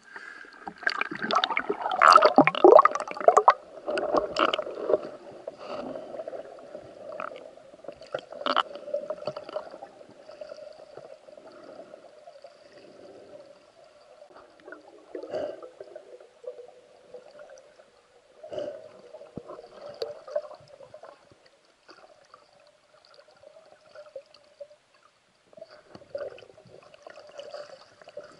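Water splashing and gurgling as a spearfisher goes under, loudest in the first few seconds, then quieter muffled underwater bubbling with scattered faint clicks.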